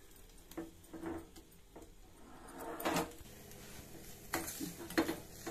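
A spoon stirring thick chutney in a stainless steel pan: soft scrapes and clinks against the pan, the loudest a longer scrape about three seconds in, with a couple of sharper knocks near the end.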